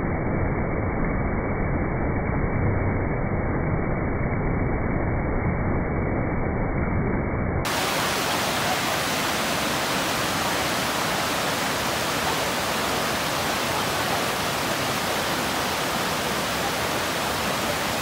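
Mountain stream and waterfall rushing over granite boulders in a steady roar of water. For the first several seconds the sound is deep and muffled, slowed down with the slow-motion footage; about eight seconds in it switches abruptly to a brighter, full hiss of rushing water.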